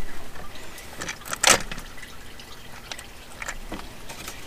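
Coolant dripping and trickling out of a Chrysler 3.6 V6 as its oil cooler and filter housing is pried loose. A sharp knock comes about a second and a half in, and a few light clicks near the end.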